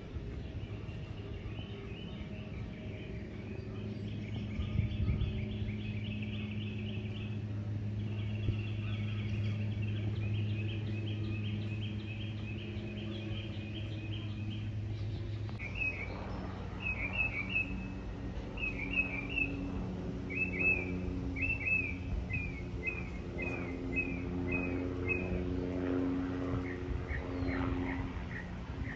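Songbirds singing: quick runs of high chirps, then about halfway through a series of sharper, slurred notes repeated about twice a second. A steady low hum runs underneath.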